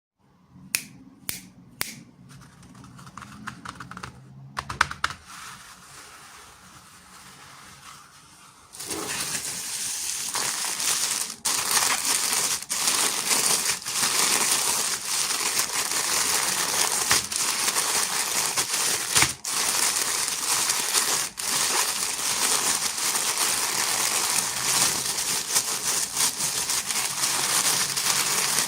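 Plastic toy packaging being handled and opened: a few sharp clicks and light crinkling at first, then from about nine seconds in a loud, dense, continuous crinkling.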